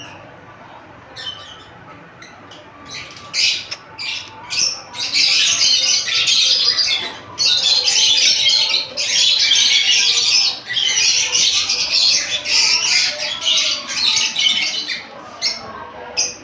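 Pet parrot screeching in harsh squawks. A few short calls come about three seconds in, then near-continuous squawking from about five to fifteen seconds in, and a few short squawks near the end.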